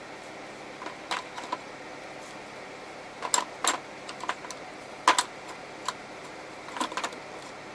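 Metal hand tools (Allen keys and sockets) clinking and clicking as they are handled in a tool set tray, about a dozen irregular light knocks, over a steady low hum.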